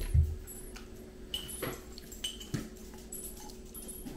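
A dog whining faintly a couple of times, with a low knock at the start and a few small clicks of tableware. A steady low hum sits underneath.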